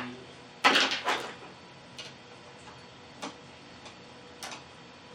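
A few sharp clicks and knocks of tools and parts being handled on a repair workbench: a loud pair about a second in, then lighter single clicks every second or so.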